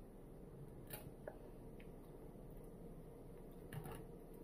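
Faint eating sounds: a few small clicks and soft wet mouth noises from chewing pizza, about a second in and again near the end, over a low steady room hum.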